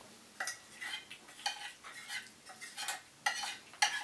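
Two cats eating from ceramic dishes: irregular short clinks and scrapes of teeth and tongues against the plates, two or three a second, with chewing.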